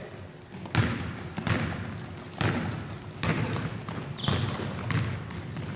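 Basketball being dribbled on a hardwood gym floor: irregular bounces, each echoing in the hall, with a couple of brief high squeaks.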